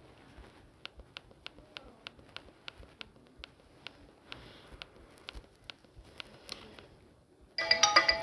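Faint sharp clicks, a quick run of about four a second and then a few scattered ones. Near the end a Samsung GT-C3592 ringtone starts playing loudly, a bright melody of clear ringing notes.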